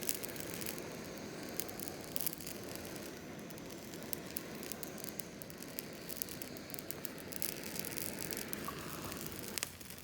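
Wood fire burning with a steady hiss and irregular sharp crackles and pops.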